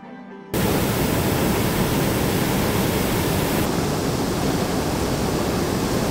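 Hot air balloon's propane burner firing: a loud, steady rushing blast that starts abruptly about half a second in.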